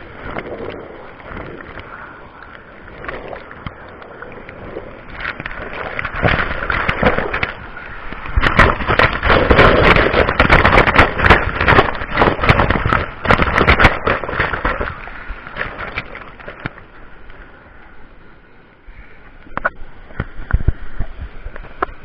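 Rushing white water of a small river waterfall close to the microphone, with a dense crackle of spray and splashes striking the camera. It grows loudest and most turbulent from about eight to fifteen seconds in, then eases.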